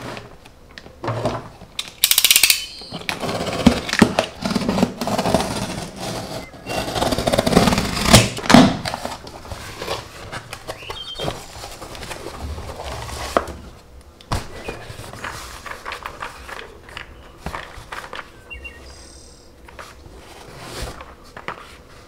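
Cardboard shipping box being unsealed and opened by hand: a ripping hiss of packing tape about two seconds in, then crackling and rustling of cardboard flaps and packing, with sharp knocks and taps as the small boxes inside are handled.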